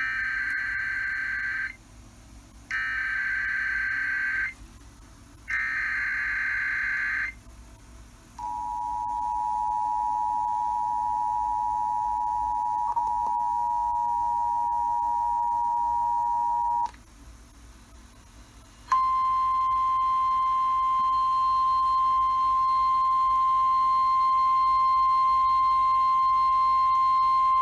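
Emergency Alert System broadcast tones: three short buzzy SAME header data bursts, then the two-tone EAS attention signal held for about eight seconds. After a short pause comes a single steady alert tone, the NOAA Weather Radio 1050 Hz warning alarm, for about nine seconds, heralding a severe thunderstorm warning.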